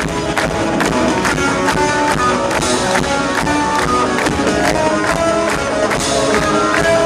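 Live worship band music: guitar playing over a steady beat.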